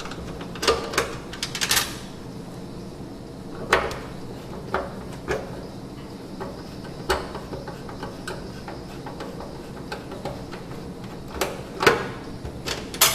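Scattered clicks and knocks of hands and tools working on a washing machine's front panel and door lock, loudest in a cluster about a second in and again near the end.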